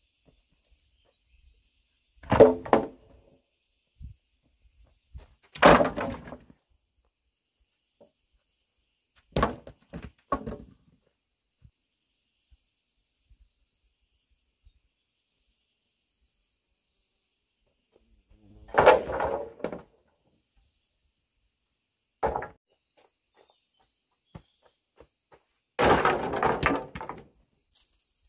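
Lengths of bamboo dropped and knocked together, each drop a short hollow wooden clatter; about six clatters, the loudest near the start and near the end.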